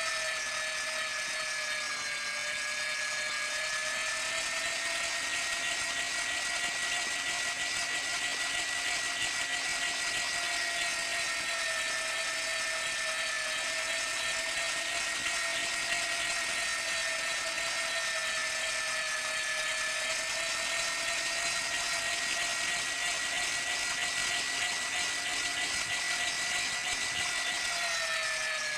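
Electric meat grinder running steadily as it grinds meat, its motor giving a high whine. The pitch sags slightly a couple of seconds in and again near the end.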